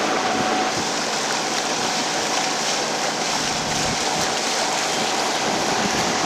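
Steady rushing noise of wind and water aboard a sailing yacht under way, with a faint steady tone beneath it.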